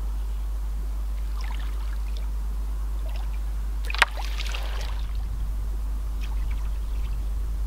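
Shallow lake water sloshing and trickling around a wading angler's legs and landing net, with one sharp splash about four seconds in as the net is grabbed and pulled through the water. A steady low rumble runs underneath.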